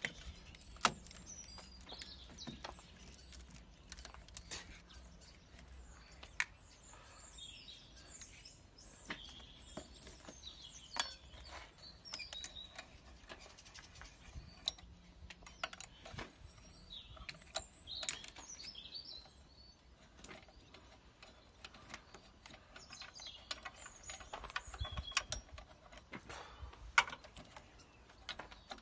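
Small birds chirping and singing throughout, with scattered sharp clicks and metallic knocks of hand tools working on a car battery; the loudest knocks come about a second in, near the middle and near the end.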